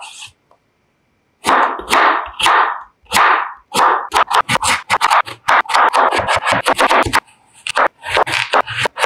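Kitchen knife cutting peeled raw potatoes on a wooden cutting board: a few slow drawn slices, then quick chopping at about five strokes a second, with a brief pause near the end.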